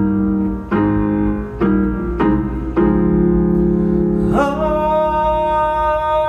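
Piano playing the intro of an R&B ballad: full chords struck about every half to one second, then a long held note that slides up into pitch about four seconds in and rings over the sustained harmony.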